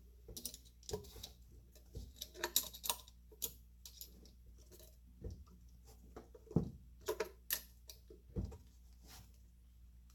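Irregular light clicks, taps and knocks of hand tools and small parts being handled during reassembly work, with a cluster of sharper knocks about two-thirds of the way through.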